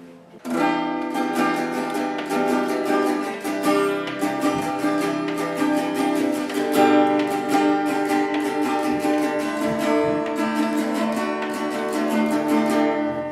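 Guitar strummed in a steady rhythm of chords, starting about half a second in and stopping just before the end, played as a short audition.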